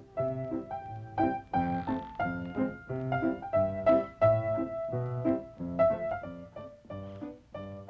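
Piano playing a tune: a melody over low chords, notes struck in a steady rhythm of about two a second.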